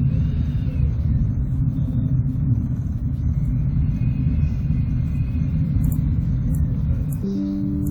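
Deep, steady rumble that some listeners describe as sounding like vibrating. About seven seconds in, a short steady tone with several pitches stacked on one another comes in over it.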